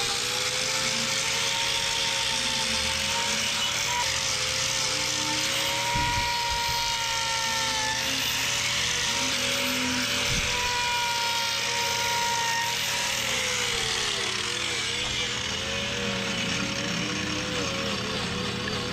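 Handheld angle grinder with a disc, spinning up and then running steadily with a whine while grinding cow hoof horn. About two-thirds of the way through, its pitch sags and stays lower and wavering.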